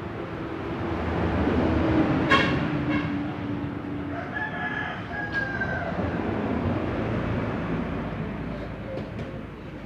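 A rooster crowing in the background, over a low rumble that swells and then fades.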